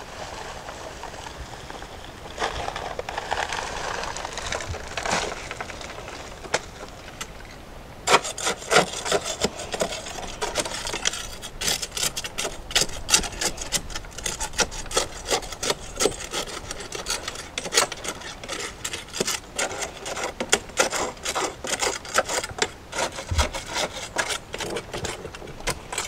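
Dry concrete mix pours from a paper bag into a wooden form packed with rocks, a steady hiss with a few soft knocks. From about eight seconds in, a blade is jabbed and scraped again and again through the dry mix and against the stones, working the mix down between the rocks so it won't jam up.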